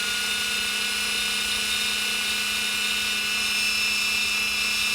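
Small electric drill running at a steady high pitch, drilling out a rivet to take apart a die-cast model car.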